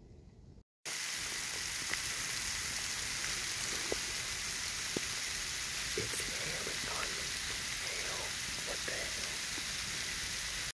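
A steady hiss, with a man whispering faintly under it in the middle and later part; it starts after a brief dropout about a second in.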